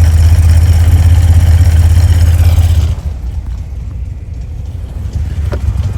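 An engine running with a loud, steady, deep hum that drops off suddenly about three seconds in to a quieter, rougher running.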